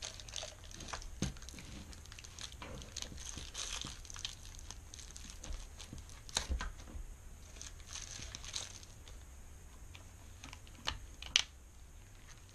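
Gloved hands handling the bare engine of a motorized-bike kit on a newspaper-covered table: light crinkling and rustling with scattered small clicks of metal parts, and a sharp click about eleven seconds in.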